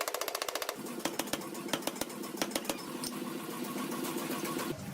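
Forging machinery, likely the hydraulic press at work, running with a steady mechanical hum and scattered clicks. It opens with a quick run of rapid ticks, and the hum cuts off shortly before the end.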